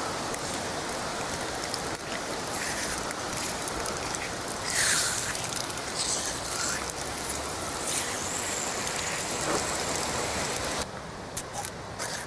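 Water rushing and splashing out of a garden hose as the line is drained after the supply is shut off, stopping suddenly near the end. A few sharp clicks of the hose connectors being handled follow.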